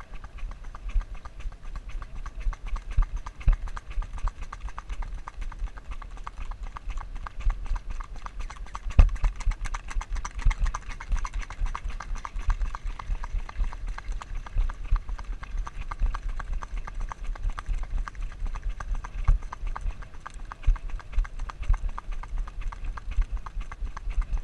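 Horse's hooves clip-clopping steadily on a paved road, with a rapid clicking over them from a GoPro Hero camera that has worked loose on its helmet mount.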